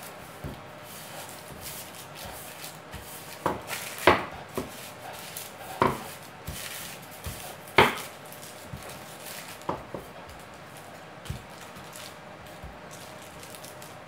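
Kitchen handling noises while ground-chicken jerky mixture is flattened and rolled out on baking paper: a handful of sharp, irregular knocks and taps, the loudest about four and eight seconds in, with light rustling between.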